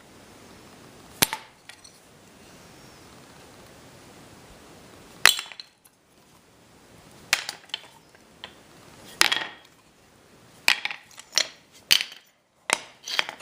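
Old metal hand tools such as hammers clanking against each other as they are handled and set down: sharp metallic knocks with a short ring, irregularly spaced, coming more often near the end.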